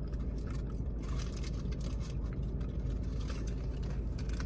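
Steady low rumble of a car engine idling, with faint scattered clicks over it.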